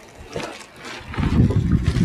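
A large cardboard shipping box being pulled up off a plastic-wrapped sprayer cart: cardboard scraping and rustling, with a few light knocks at first and a louder rumbling rustle over the last second.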